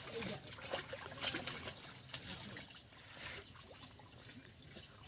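Pond water splashing and trickling as laundry is rinsed by hand, in irregular splashes with water running off between them.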